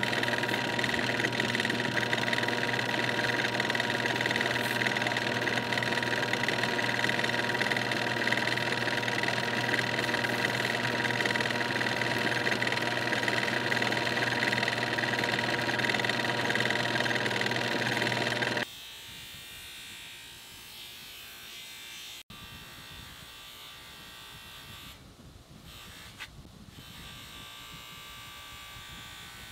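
A small metal lathe running steadily with a steady hum and whine while a small steel part spinning in its chuck is polished with abrasive paper held against it. About two-thirds of the way through the sound drops suddenly to the quieter steady running of a bench grinder wheel with a small part held against it.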